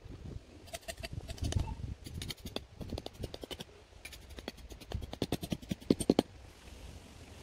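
Crinkling and rustling of a poled windbreak's fabric and clear plastic window panels as they are handled, in quick irregular clicks that come in clusters.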